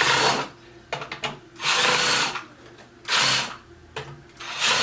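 Power drill-driver running in four short bursts about one and a half seconds apart, tightening the cam locks on a cabinet drawer.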